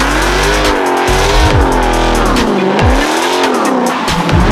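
Rear tires of a Dodge Charger Scat Pack squealing through a burnout, the squeal wavering up and down in pitch, over background music with a heavy bass.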